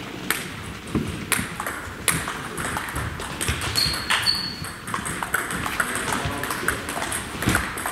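Table tennis ball clicking off rackets and the table during a rally, sparse at first and coming more regularly in the second half, each click ringing in the hall. A brief high squeak about four seconds in.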